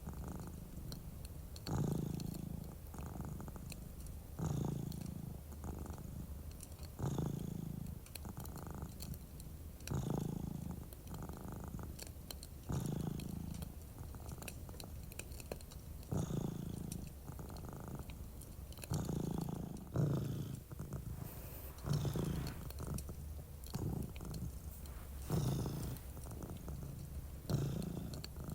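A domestic cat purring close up, a low rumble that swells with each breath about every two and a half to three seconds, with the soft crackle of a fireplace underneath.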